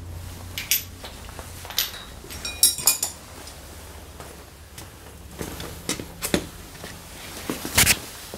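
Scattered metallic clinks and knocks of hand tools and metal parts being handled, with a cluster of ringing clinks about three seconds in and a louder knock near the end, over a faint steady low hum.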